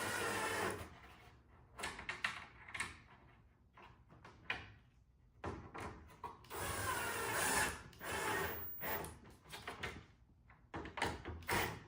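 Cordless drill-driver running in screws to mount the front camera, in two whirring runs of about a second each. Clicks and knocks of parts being handled come between the runs.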